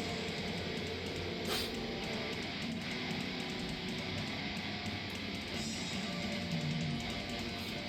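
Background music: guitar-driven rock with strummed electric guitar, playing steadily. A short click about a second and a half in.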